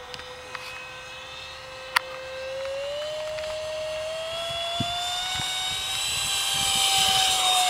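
Windrider BD-5 light aircraft flying by, its engine a steady whine that rises in pitch and grows louder as it comes closer. A single sharp click about two seconds in.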